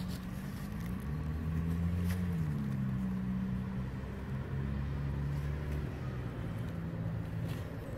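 A motor engine runs steadily with a low hum, its pitch rising about a second in and dropping again about two and a half seconds in.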